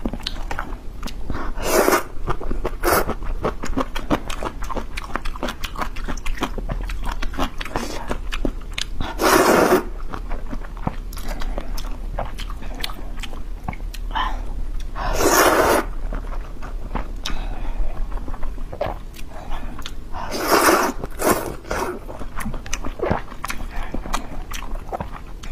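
Close-miked eating sounds from spicy river-snail rice noodles (luosifen) with chicken head: steady wet chewing and mouth clicks, broken by several loud slurps of noodles, the longest about 9, 15 and 20 seconds in.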